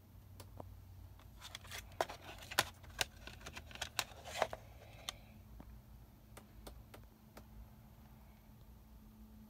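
Plastic CD jewel case being handled and snapped open: a run of sharp clicks and light scrapes from about one and a half to five seconds in, then a few faint ticks.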